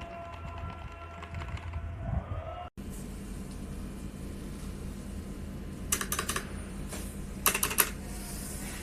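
Keys being typed on a mechanical keyboard with linear red switches, in two short quick bursts of clicks over a steady low hum.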